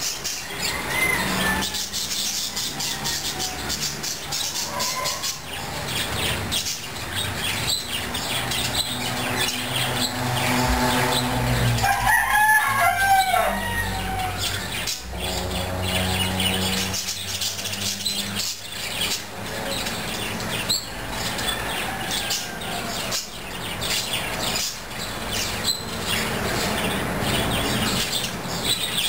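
Birds: wings flapping with many quick clicks, chirping, and a fowl-like gliding call about halfway through.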